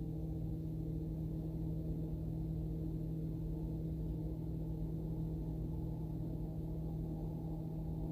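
Steady machine hum with one strong even tone and fainter overtones over a low rumble, unchanging throughout.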